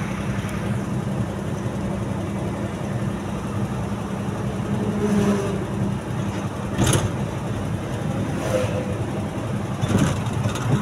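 Steady drone of a vehicle's engine and road noise heard from on board while driving along the road, with two short knocks about seven and ten seconds in.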